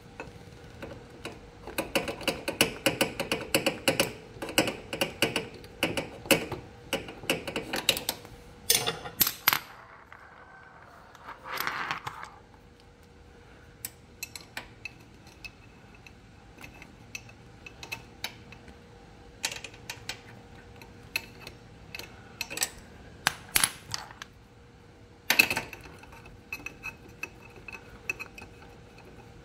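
Ratchet wrench clicking as it works a bolt on a Honda PCX scooter's engine casing: a fast run of clicks lasting several seconds, then scattered single clicks and metal clinks. There is a short scraping rustle near the middle.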